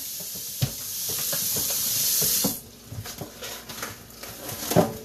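Kitchen faucet running in a steady stream into a stainless steel sink, cut off suddenly about two and a half seconds in, followed by a few light knocks from handling in the sink.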